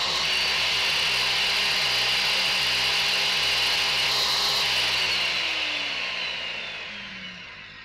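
Corded Craftsman circular saw, a 13-amp model, running free with no cut, a steady high motor whine. About five seconds in it is released and its blade spins down, the whine falling away slowly.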